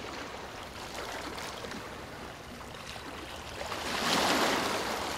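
Rushing water, like a stream or waves, a steady wash of noise that swells louder about four seconds in.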